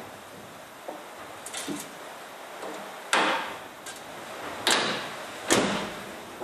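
Car bonnet being shut and pressed down onto its latch: a few light knocks, then three sharp metallic bangs in the second half.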